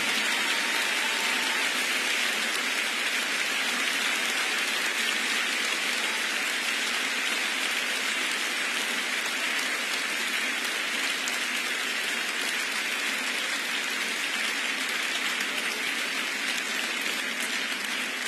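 Large concert audience applauding, a steady even clapping that eases slightly near the end.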